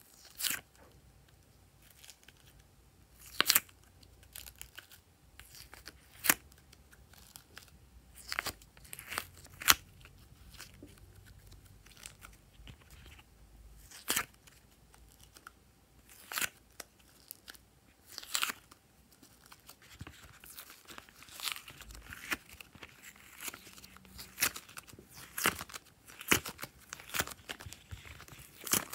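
Soft clay shapes pulled one by one out of a hexagon mold, each release a sharp snap or click, a dozen or so spaced a few seconds apart. In the last several seconds the clicks come closer together, mixed with a crackly squish as the clay pieces are pressed together in the hand.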